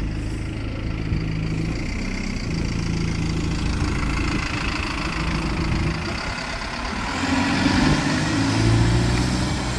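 Alexander Dennis Enviro400 double-decker bus engine heard on board, running steadily at first, then growing louder near the end as it pulls harder, with a high whine from the drivetrain.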